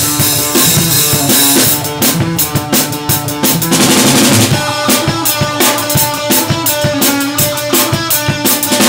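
A band playing live with the drum kit to the fore: fast kick, snare and rimshot strokes over held pitched instrument notes, with a crash of cymbals about four seconds in.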